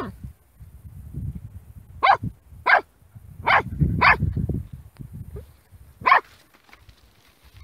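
Puppy barking at a snake in short, sharp yaps, about five of them with gaps between, over low rustling in the dry brush.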